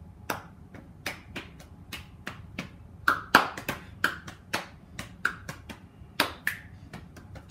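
Hands clapping in a quick, slightly uneven run of light claps, about three to four a second, with a few louder claps about three seconds in and again near the end.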